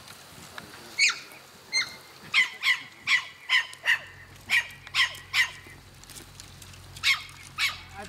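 A dog barking in short, sharp yaps, about a dozen in quick runs with a pause before two more near the end.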